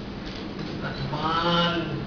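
Speech only: a man's voice speaking one phrase about a second in, over a faint steady low hum.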